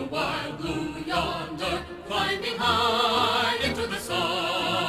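Music with singing: sustained vocal notes wavering with vibrato over an orchestral accompaniment.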